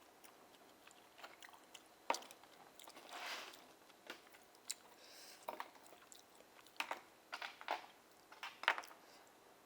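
Close-miked mouth sounds of eating steamed oysters: soft chewing and wet smacking, with a longer slurp about three seconds in and sharp wet clicks scattered through.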